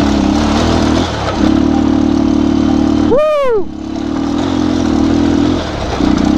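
Bajaj Pulsar 220's single-cylinder engine running on a rough dirt track, its note changing as the throttle opens and closes. About three seconds in, the rider lets out a short rising-and-falling whoop.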